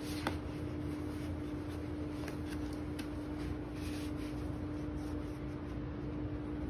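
Faint clicks and rubbing as the blade-cleaner attachment is handled and fitted onto the cleaning tool's pole, over a steady low hum.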